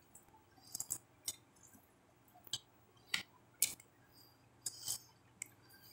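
Close-up eating sounds of a person chewing soft fish moqueca and rice eaten by hand: faint, scattered wet mouth clicks and lip smacks, about ten in all.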